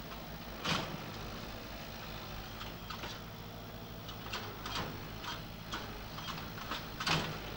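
Farm tractor's diesel engine running steadily at low revs as it manoeuvres with a two-wheel trailer in tow. Scattered sharp clicks and knocks come over it, the loudest about a second in and another near the end.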